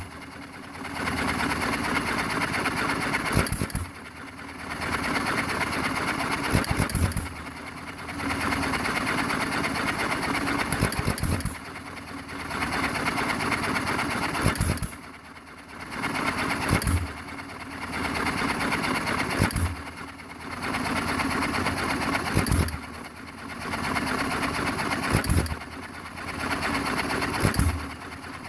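John Deere 1½ hp single-cylinder hit-and-miss engine running just after its rebuild, firing with sharp bangs and then coasting, in a regular cycle about every three seconds.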